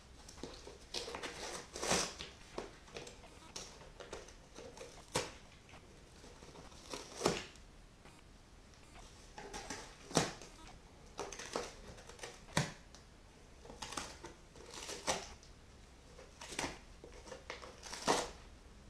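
A cat biting and tearing at the edge of a cardboard box it sits in: sharp crunches and rips of cardboard every couple of seconds, with quieter rustling and chewing between.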